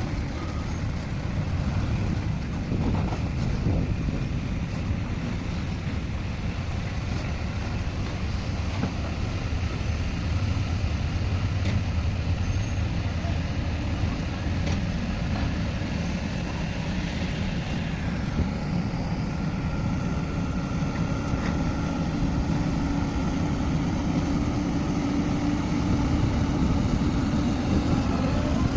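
Heavy diesel earthmoving machinery, an excavator and bulldozer, running steadily with a low rumble. About two-thirds of the way in, a steady higher whine joins the engine sound.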